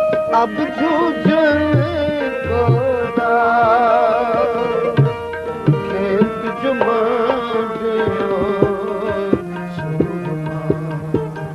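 Background music: a wavering melodic line over struck drums with deep, scattered strokes, in an Indian classical style.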